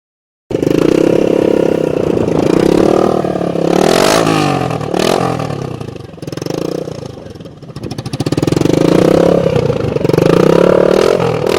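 Motorcycle engine with a loud exhaust being revved repeatedly, its pitch climbing and falling, easing off in the middle and climbing again. A few sharp cracks from the exhaust come about four and five seconds in.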